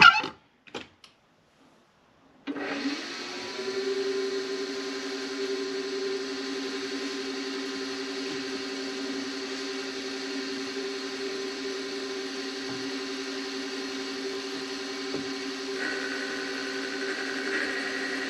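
Benchtop milling machine's spindle motor starting about two and a half seconds in, then running steadily with a whine while an outside chamfer mill is fed into a Delrin plastic block. A higher tone joins near the end.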